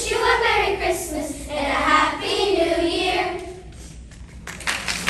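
Children's choir singing, the final phrase dying away about three and a half seconds in; applause breaks out just before the end.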